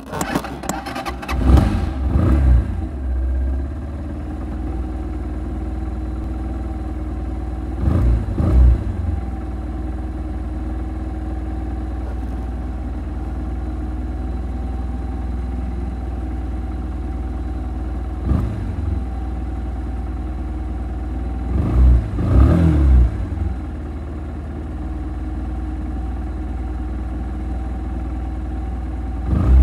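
Kymco Quannon 125 motorcycle's single-cylinder engine idling steadily, with several short throttle blips where the revs rise and fall back: near the start, twice more in the middle, and at the very end.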